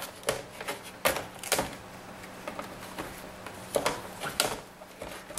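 Light clicks and knocks of plastic and metal as a laptop LCD panel is lifted and tilted out of its display back cover, about half a dozen separate taps.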